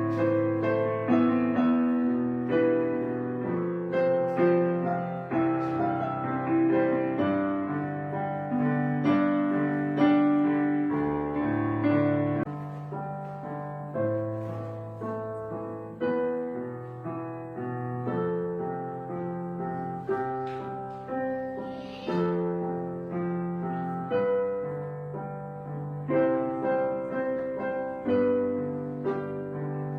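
Background music: a gentle solo piano piece, with notes struck one after another and fading over sustained low chords.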